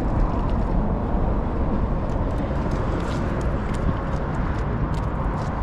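Wind buffeting the microphone: a steady, loud, flickering low rumble, with a few faint ticks in the second half.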